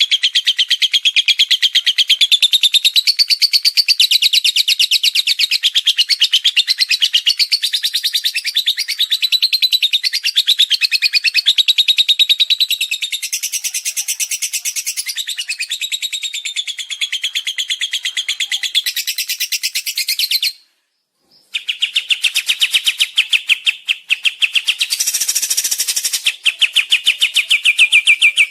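Songbird song of rapid, rattling trills and chirps, high-pitched and nearly continuous, broken by a silence of about a second about three-quarters of the way through.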